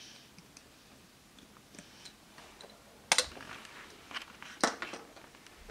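Small plastic clicks and knocks as plastic Play-Doh tools are handled against a plastic play table, with two sharp knocks louder than the rest, about three seconds in and again about four and a half seconds in.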